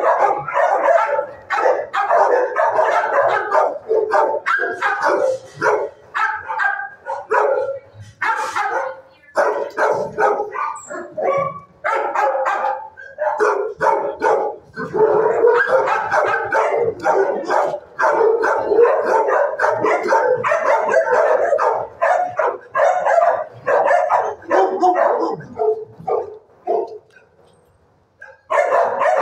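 Many shelter dogs barking at once in the kennels, a continuous din of overlapping barks and yips that fades out briefly near the end before starting up again.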